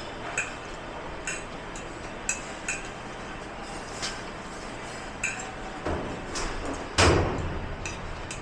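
Dishes and cutlery clinking against each other as they are handled, a sharp clink every second or so, with a louder clatter about seven seconds in.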